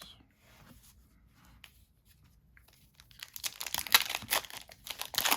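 Foil Pokémon booster pack wrapper being crinkled and torn open. It is nearly quiet at first, and the crackling and tearing starts about three seconds in.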